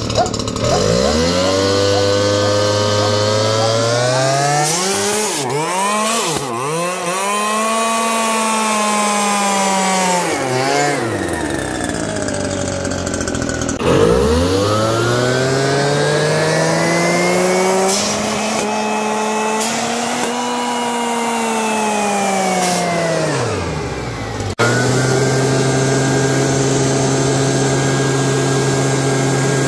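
Two-stroke gas leaf blower revving up and back down twice, each time climbing in pitch over several seconds and then falling, as its air stream spins up a turbocharger with a dry shot of nitrous fed into the blower. About 25 seconds in, the sound changes abruptly to a steady high-speed run.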